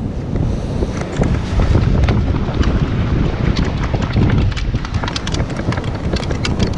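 Wind buffeting the microphone, with a scatter of sharp clicks and rattles that grow denser near the end as a target is dug out of beach sand.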